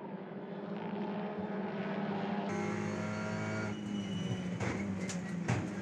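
TCR touring cars' turbocharged four-cylinder engines running hard in a racing pack. About halfway through, the sound changes abruptly to a brighter, closer engine note at high revs.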